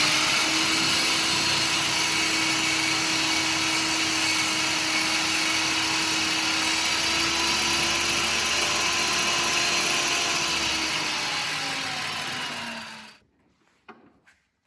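Handheld electric power tool with a spinning blade running steadily under a cutting load, then switched off about twelve seconds in, its motor winding down with a falling pitch.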